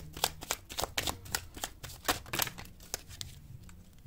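A deck of tarot cards being shuffled by hand: a rapid run of sharp card clicks that thins out after about three seconds, over a low steady hum.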